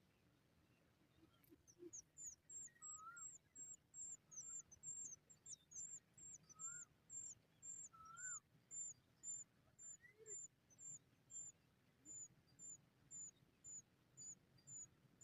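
Robin chicks calling: a long series of faint, very high, thin chirps, two to three a second, starting about a second and a half in and slowing toward the end, with a few lower whistled notes among them.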